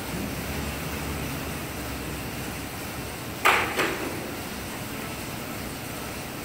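Steady whir of an air bike's fan as it is pedalled, with two sharp knocks about three and a half seconds in, a quarter of a second apart.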